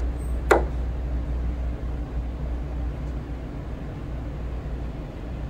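A steady low background rumble, with one short sharp sound about half a second in that drops quickly in pitch.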